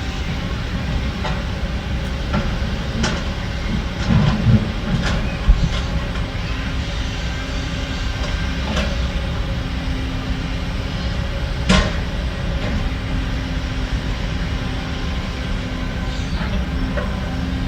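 Heavy diesel construction machinery running steadily, with scattered sharp metal clanks; the loudest clank comes about twelve seconds in.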